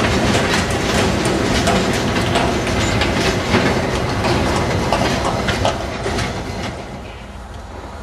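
CSX freight train's cars rolling past, the steel wheels clicking and clattering over the rail joints, the sound dropping away about six to seven seconds in.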